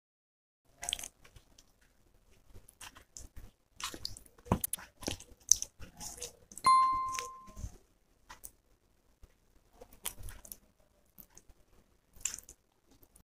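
Roti being torn by hand and pieces of chicken curry picked apart with the fingers on a steel plate: scattered dry crackles and soft rustles in short, irregular bursts. About seven seconds in, a single bell-like chime rings out and fades within a second, the loudest sound in the stretch.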